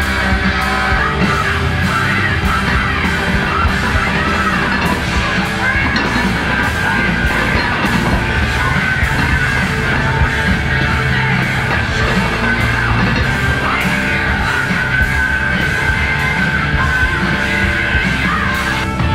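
Loud heavy rock or metal music with shouted, yelled vocals over distorted instruments and a steady drum beat.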